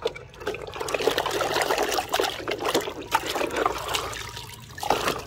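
Water trickling and splashing, with many small knocks, as mud-covered toy trucks are washed.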